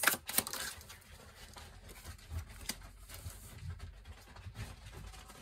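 Tarot cards being handled: a few sharp clicks and taps at the start, then soft scattered taps and rustles.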